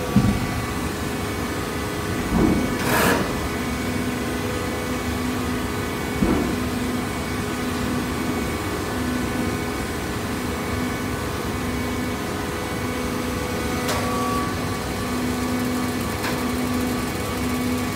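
Hydraulic baler's motor and pump running with a steady hum, one tone in it cutting in and out at a regular pace, and a few knocks from the machine.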